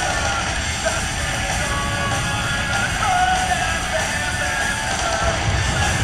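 Background music: a rock song with a singing voice over a full band.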